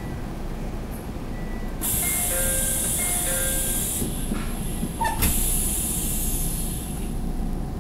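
Cabin of a JR Central 313 series 2600 subseries electric train standing at a station: a loud air hiss starts about two seconds in, a short chime of a few tones sounds twice, and a knock near five seconds in, as the pneumatic doors close before departure.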